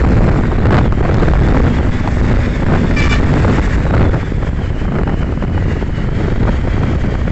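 Wind rushing over the microphone with the road and engine noise of a motorcycle riding at speed. A brief high tone sounds about three seconds in.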